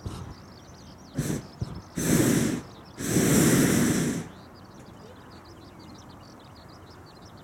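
Hot air balloon propane burner firing in three blasts: a short one, then a longer one, then the longest and loudest, each a broad rushing noise, as the burner heats the inflated envelope.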